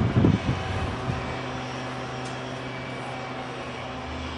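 Steady low hum of an electric train with a few held tones, after a short low rumble in the first second.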